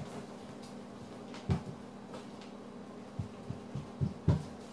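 Soft thumps of bare feet walking on a hardwood floor: one about a second and a half in, then several close together near the end, over a steady low hum.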